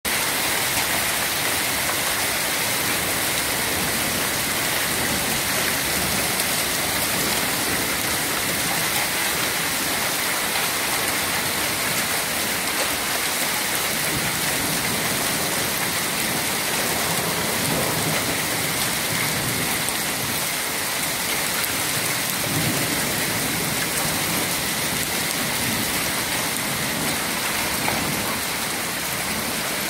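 Hail mixed with rain falling steadily onto the paved street, a dense even hiss with many small ticks.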